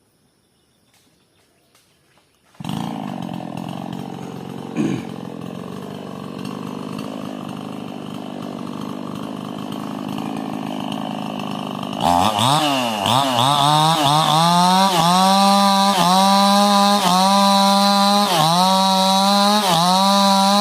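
Two-stroke chainsaw that comes in suddenly a couple of seconds in and runs steadily at low speed, with one sharp knock, then revs up about halfway through and runs at high speed, its pitch dipping briefly about once a second.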